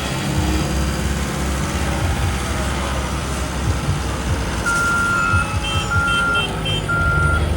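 Heavy paving machinery engines running steadily. About two-thirds of the way in, a backup alarm starts beeping in long, evenly spaced beeps, with a second, fainter and higher alarm beeping briefly alongside it.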